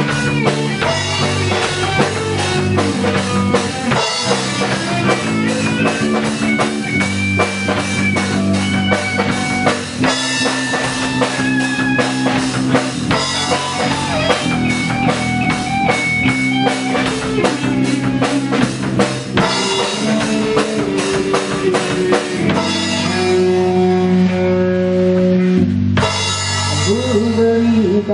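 Instrumental stretch of a rock song: electric guitar over a steady drum kit beat, with no singing.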